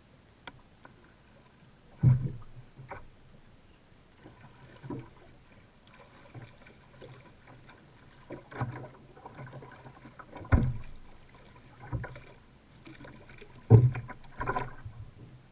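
A hooked redfish thrashing and splashing at the side of a kayak as it is drawn in, with about four sharp knocks on the kayak's hull, the loudest near the end.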